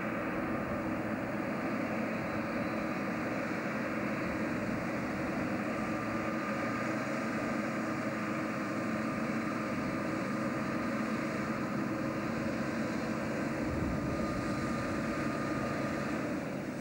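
Heavy truck engine running steadily as the lorry approaches, a continuous low drone with a thin whine over it for much of the time.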